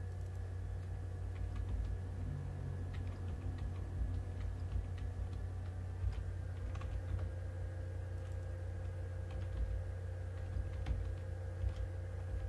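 Computer keyboard keys tapped in short, irregular runs as names are typed, over a steady low electrical hum.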